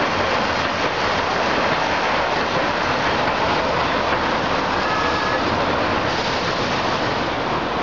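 Articulated electric streetcar rolling past on street rails, a steady rumble and rail noise mixed with passing road traffic. A brief faint high tone sounds about five seconds in.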